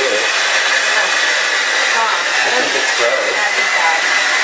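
Hair dryer running steadily, a constant whirring rush with a steady high whine.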